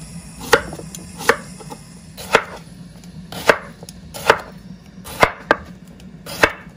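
Chef's knife slicing a cucumber into rounds on a bamboo cutting board: about eight sharp knocks of the blade hitting the board, roughly one a second at an uneven pace.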